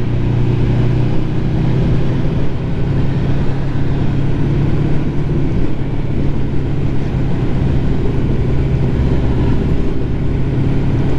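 Ducati motorcycle engine running steadily under way, a continuous low drone with a slight rise in pitch early on.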